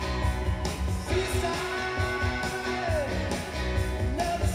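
Rock music with a singer and guitar over a steady beat.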